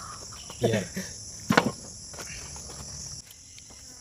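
Insects (crickets) chirring steadily at a high pitch, fading out about three seconds in. Two sharp knocks about half a second and a second and a half in, with small clicks of handling.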